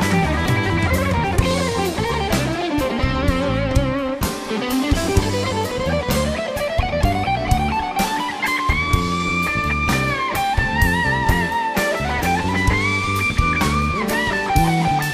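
Live band playing an instrumental passage: an electric guitar solo over bass and drums. The guitar slides slowly upward in pitch about four seconds in, then holds high notes with vibrato.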